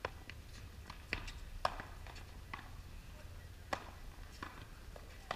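Pop tennis rally: solid paddles hitting the ball, with the ball bouncing on the hard court. It comes as a string of sharp pops at uneven spacing, the loudest about a second and a half in, over a low steady outdoor rumble.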